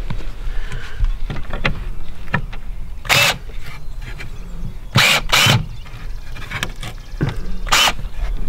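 Cordless drill driving screws into wooden strips, in several short runs.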